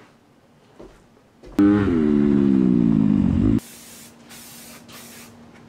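A loud guitar chord sliding down in pitch for about two seconds and then cutting off, followed by three short hisses of an aerosol can of silicone spray being sprayed onto a dirt bike.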